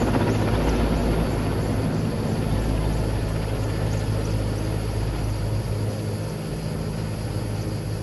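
Firefighting helicopter carrying an underslung water bucket flying overhead, its rotor running steadily and slowly fading as it moves away.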